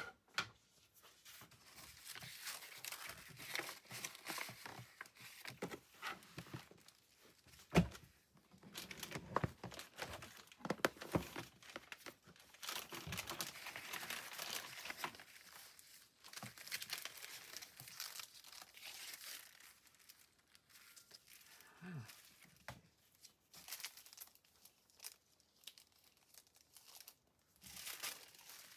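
Fabric scraps and paper being handled, with crinkling, rustling and tearing in irregular bursts and a few small knocks.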